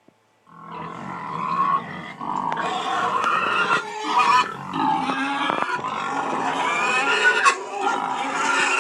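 Recorded animal sound effect played back: a dense, unbroken run of animal calls that starts about half a second in.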